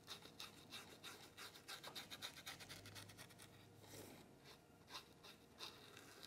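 Faint, quick scratchy strokes of a paintbrush dry-brushing shading onto a painted wooden cutout, with a pause about three seconds in.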